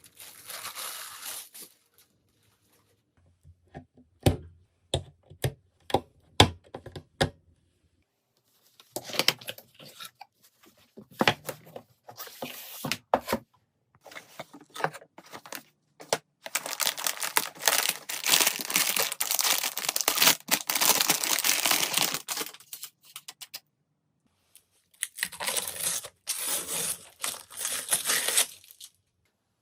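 Packaging being handled and torn open: tearing and crinkling plastic or paper, with scattered sharp clicks and knocks in between. The longest stretch of rustling comes about halfway through, and a shorter one comes near the end.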